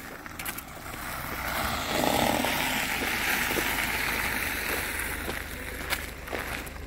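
A car driving past on the street, its tyre and engine noise swelling and fading over a few seconds, with footsteps on the sidewalk.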